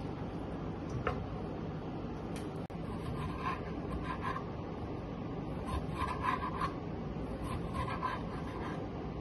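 Kitchen knife slicing a tomato on a cutting board: soft scraping cuts that come in small clusters from about three seconds in, over a steady low background hum.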